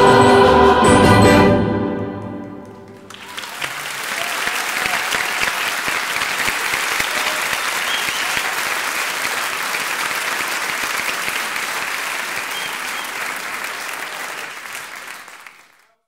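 An orchestra and choir end on a held chord that fades out about two seconds in. Then the audience applauds steadily, and the applause fades out near the end.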